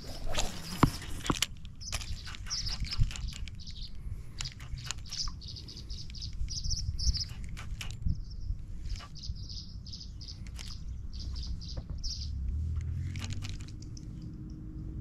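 Small birds chirping, many short high notes repeated throughout. A brief swish in the first second or so comes from a spinning rod being cast, with line running off the open spool.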